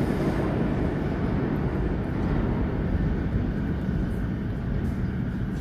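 R142 subway train pulling away into the tunnel: a steady low rumble of wheels and motors that slowly fades as it recedes.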